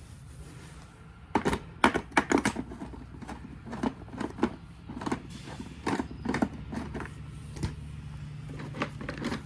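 Irregular clicks, taps and knocks of hands and tools working on the plastic casing and parts of a Honda EU2200i generator during disassembly, over a faint steady low hum.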